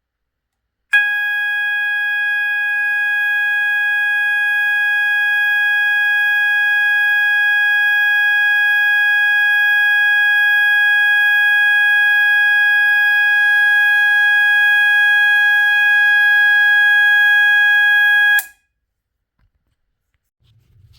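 System Sensor MASS2475ADA fire alarm sounder sounding one steady, unbroken tone. It starts about a second in and cuts off sharply about seventeen seconds later.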